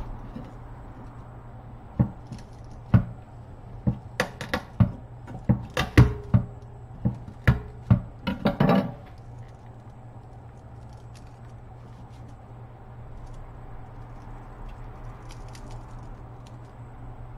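Kitchen knife knocking on a wooden cutting board while garlic cloves are worked: about fifteen sharp, irregular knocks over some seven seconds, ending in a quick flurry. After that only a steady low hum remains.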